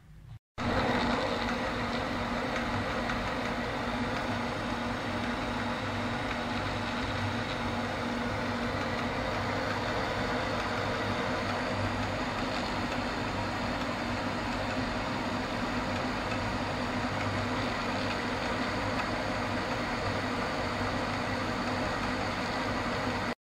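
Metal lathe running steadily while a drill bit in the tailstock drill chuck bores into the end of the spinning bar: an even machine hum with a constant higher whine.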